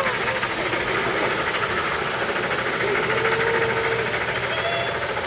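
LMS 8F 2-8-0 steam locomotive working a train, its exhaust beats coming under the steady hiss of torrential rain.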